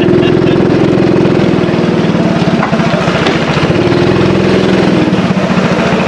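An engine running at a steady speed with a rapid, even pulsing beat.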